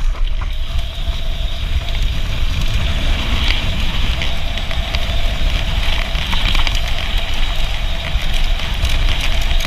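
Enduro mountain bike descending a dirt and gravel trail at speed: the tyres rolling and crackling over the surface and the bike rattling with small clicks, with wind buffeting the microphone.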